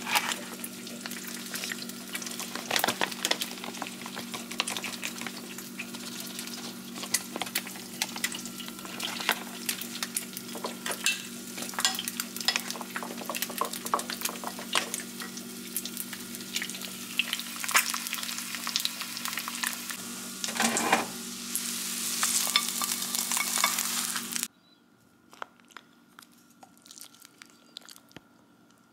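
Hot oil crackling and sizzling as food fries in a pan, over a steady low hum. About three-quarters of the way through the sizzle cuts off abruptly, leaving a much quieter stretch with a few small clicks and taps.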